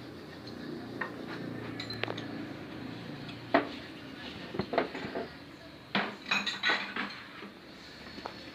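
Metal tools and parts clinking and knocking, a dozen or so sharp separate strikes with the loudest about three and a half seconds in and a quick cluster around six to seven seconds in, typical of work on a car AC compressor being dismantled. A low hum runs underneath for the first few seconds.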